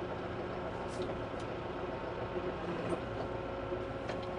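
Kubota M5-091 tractor's four-cylinder diesel engine running steadily, heard from inside the cab, with a few light clicks.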